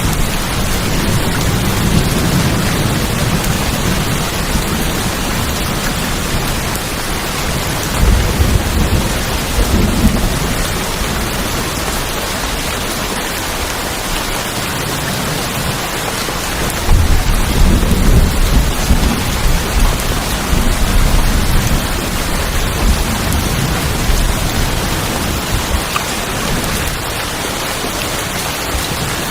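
Steady rain on a tin roof, an even hiss, with rolls of thunder rumbling low beneath it: one just at the start, another about eight seconds in, and a longer, louder spell from about seventeen to twenty-five seconds in.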